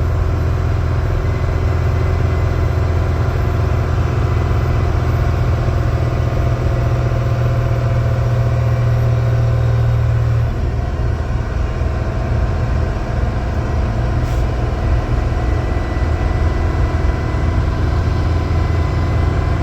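Volvo semi-truck's engine brake fully on while descending a hill in 8th gear: a loud, steady deep engine drone. The drone eases slightly about ten seconds in.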